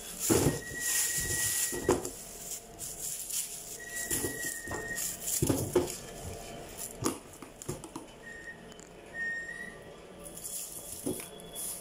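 Plastic bag crinkling and rustling, loudest in the first two seconds, then onions and garlic handled in a plastic storage box with a few sharp knocks. A thin, high whistle-like tone comes and goes three times.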